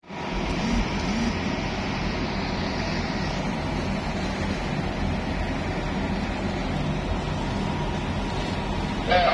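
Steady low drone of a vessel's engine under way, with a constant rush of wind and water.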